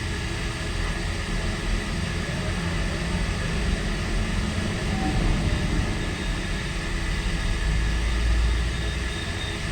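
Steady low mechanical rumble with a faint continuous hum, the background noise that had started up during the shoot; the rumble swells a little near the end.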